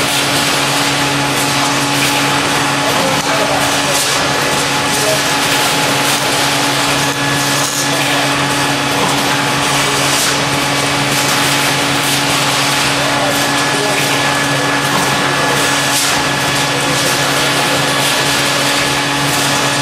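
Automated polypropylene-coat tube stripping machine running: a steady mechanical hum with a constant low drone, with scattered clicks and clanks from the tooling and tube handling.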